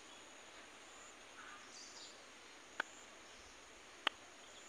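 Faint outdoor background: a steady hiss with no voices, broken by two short sharp clicks, about three seconds in and again about a second later.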